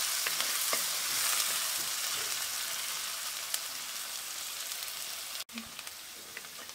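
Chopped onion, ginger and garlic sizzling in mustard oil in a kadhai over a low flame, stirred with a wooden spatula that scrapes the pan now and then. The sizzle fades slowly and drops lower after a sudden brief break about five and a half seconds in.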